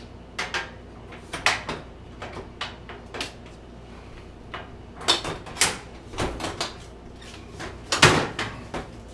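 A string of irregular clicks and knocks, like something hard being handled, opened or shut, with a heavier clunk about eight seconds in, over a steady low hum.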